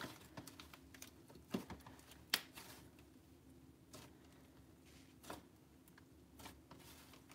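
Thick slime mixed with Snow Wonder fake snow being kneaded and pressed by hand, giving faint, irregular crackles and squishes, with a sharper pop about two seconds in.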